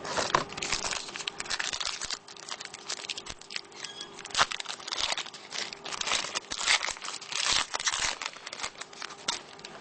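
Foil trading-card pack wrapper being torn open and crinkled by hand: an irregular run of rustles and crackles.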